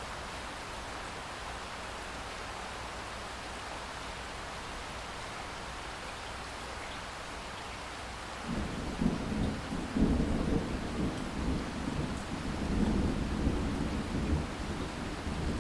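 Steady rain falling. About halfway through, a deep, uneven rumble sets in under the rain and stays to the end.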